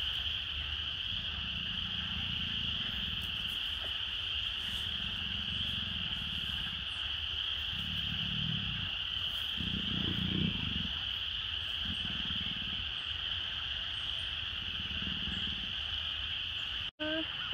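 Loud, steady chorus of tree frogs, a continuous high-pitched trilling. Beneath it, low rumbling grunts come about every two to three seconds.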